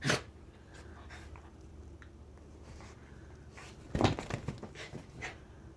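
A rat terrier making short, sharp dog noises: one right at the start, then a quick cluster of them about four seconds in.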